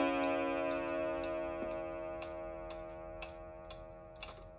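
A Belvedere 31-day wall clock's coil gong rings and slowly fades after a hammer strike. The clock's pendulum movement ticks about twice a second.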